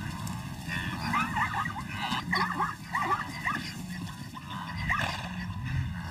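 A rapid run of short, yelping animal calls, thickest in the first half, over a steady low hum.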